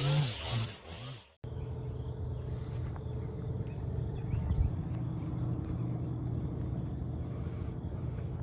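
Background music that cuts off abruptly about a second in, followed by steady outdoor background noise with a low hum and a single low thump near the middle.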